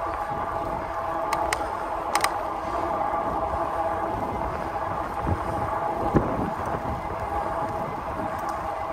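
Vitilan i7 Pro e-bike riding along a paved trail: a steady whine from the motor and tyres over light wind noise. A few sharp clicks come about a second and a half to two seconds in, and two thumps from bumps in the path around five and six seconds in.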